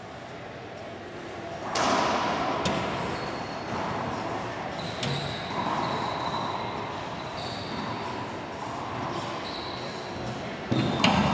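A racquetball rally in an enclosed court: sharp cracks of the ball off racquets and walls, each with a hollow echo, a loud one about two seconds in and a loud pair near the end. Short high squeaks, from sneakers on the hardwood floor, come in between.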